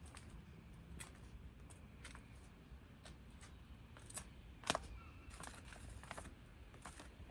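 Footsteps crunching on old snow and ice: faint, irregular crunches and clicks, one louder crunch about two-thirds of the way through.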